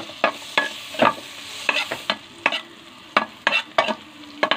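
White onion rings sizzling in melted butter in a non-stick pot while a spatula stirs them, scraping and tapping against the pot in quick, irregular strokes. The sizzle dies down about two seconds in.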